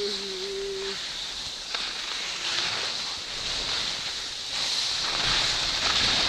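Skis sliding and scraping over groomed snow, a steady hiss mixed with wind on the microphone, growing louder about four and a half seconds in. A steady hum stops about a second in.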